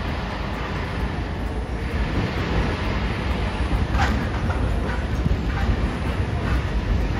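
Hiroden 3800-series tram rolling slowly in along street-running track, a steady low rumble with a sharp click about four seconds in and a few lighter clicks after, as the wheels run over the rails and points.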